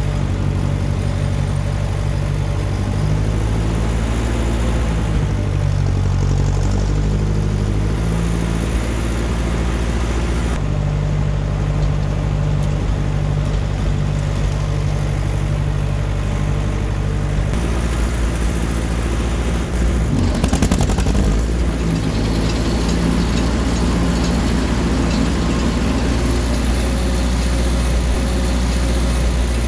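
1955 Ferguson TO35 tractor's four-cylinder gasoline engine running steadily. A little over halfway through the sound changes and a brief clatter of knocks follows, as the PTO is engaged to drive the snowblower auger.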